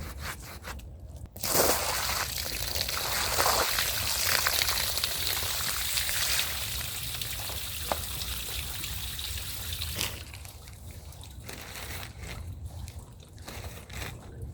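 Water spraying and running onto a rug in a loud steady hiss that starts about a second and a half in and cuts off about ten seconds in, with short repeated scrubbing strokes before and after it.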